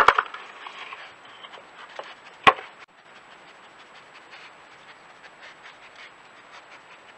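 Small wooden feeder box clattering on stone patio paving as a badger noses and pushes it about: a flurry of knocks at the start and one sharp knock about two and a half seconds in, then only faint ticks.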